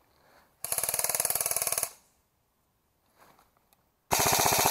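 Airsoft electric rifle (AEG) firing two rapid full-auto bursts: one lasting a bit over a second about half a second in, and another starting near the end.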